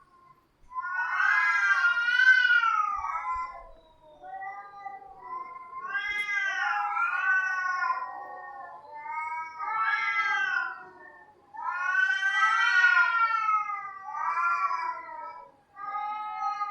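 Cats yowling: long, drawn-out wavering calls, often two voices overlapping, in about five bouts with short pauses between them.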